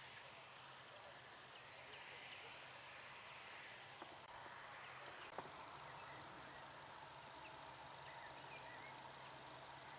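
Near silence: faint outdoor hiss and a low steady hum, with scattered faint high bird chirps and two small clicks near the middle.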